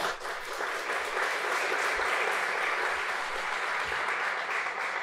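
Audience applauding, a steady round of clapping that starts abruptly.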